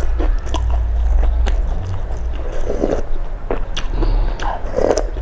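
Close-miked eating sounds: wet mouth clicks and smacks, with broth sipped from a metal spoon in two longer slurps, one near the middle and one toward the end. A steady low hum runs underneath.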